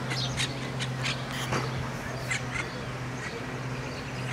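Birds calling: a scattered series of short, harsh calls, over a steady low hum.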